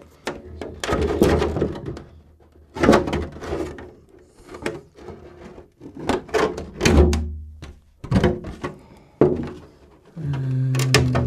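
A clear polycarbonate RC truck body being flexed and bent by hand to work it along its score line, the thin plastic giving a run of irregular sharp clicks and knocks.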